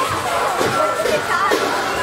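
Music playing with several voices overlapping it.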